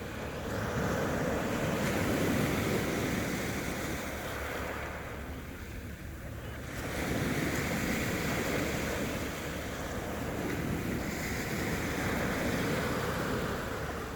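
Sea waves breaking and washing in. There are two long swells of surf with a lull about six seconds in.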